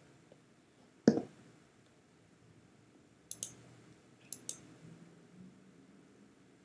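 Computer mouse clicks over faint room tone: one louder, sharper click about a second in, then two quick pairs of light clicks around three and four and a half seconds in.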